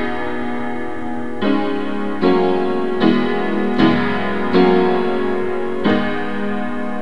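Piano-sound keyboard playing slow held chords, a new chord struck roughly every second and left ringing, in a deliberately dissonant style.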